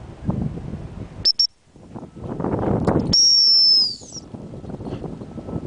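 Dog training whistle: two short high pips, then about a second and a half later one long steady blast that dips slightly in pitch as it stops, the halt signal to the dog. Rustling of movement in dry grass underneath.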